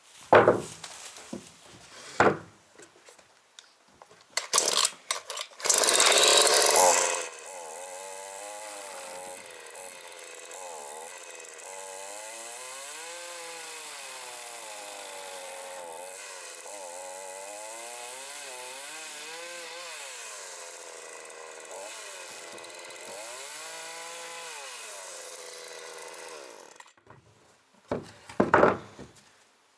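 Wood being sawn: a few loud knocks and a loud burst of sawing about six seconds in, then a long steady stretch of sawing whose pitch rises and falls.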